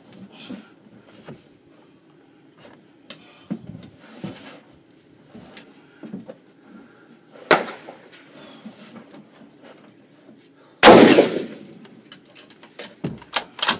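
A rifle shot about eleven seconds in, loud, with a ringing echo that trails off over about a second. A sharper, quieter crack comes about three seconds earlier. Light clicks and knocks are scattered around them, with a quick run of clicks near the end.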